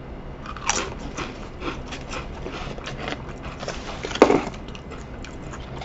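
Pringles potato crisps being crunched and chewed close to the microphone: a run of short crackles, with a louder crunch a little past four seconds in.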